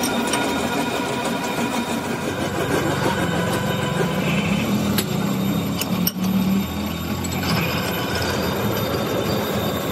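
Factory machinery running with a steady hum and several steady tones. A few sharp clicks and knocks come around the middle, and the sound briefly drops out at about six seconds.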